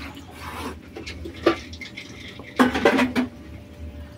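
A cat guarding its prey snarls at another cat: a short sharp snarl about a second and a half in, then a louder, longer one past the middle.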